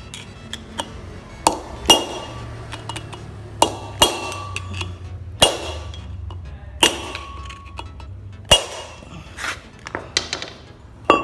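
A hammer strikes a steel drift against the wheel-bearing race in a rear brake drum hub, knocking the old race out of the hub. There are about ten sharp, ringing metal blows at uneven spacing, roughly one a second.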